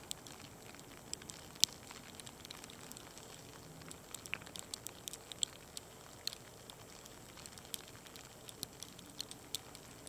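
Graupel pellets mixed with snow striking nearby surfaces: a scattered run of sharp little ticks, irregular and several a second at times, over a faint hiss, with one louder tick about one and a half seconds in.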